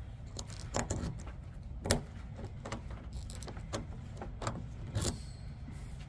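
A freshly cut Ford HU101 high-security key blade clicking and scraping in a car door lock cylinder as it is turned to test the new cut. About six sharp metallic clicks, the loudest about two seconds in.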